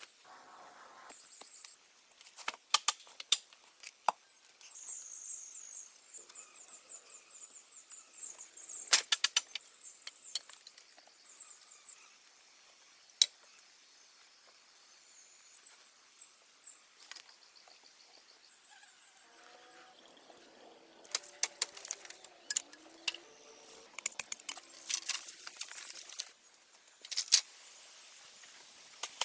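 Bamboo poles and branches knocking, creaking and snapping as they are handled, with leaves rustling; the sharp knocks come in scattered groups and bunch up near the end. A high, rapid trill runs in the background for several seconds in the first half.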